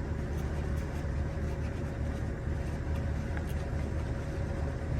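Steady low rumble of background running noise with a faint steady hum, and a few faint light clicks.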